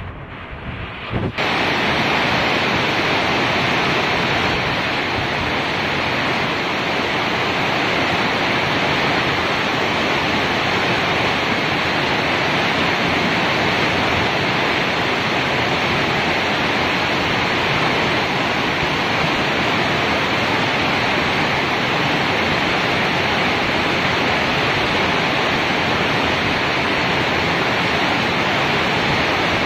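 Steady rainfall: an even, loud hiss of rain, which comes in sharply about a second in after a brief quieter moment.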